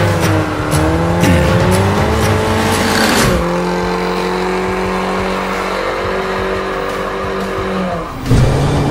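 BMW G20 320i's tuned two-litre turbo four-cylinder, breathing through an Armytrix exhaust, revving hard during a burnout with the rear tyres spinning and squealing. The revs rise and fall for about three seconds, then are held steady and high until the engine note drops away abruptly near the end.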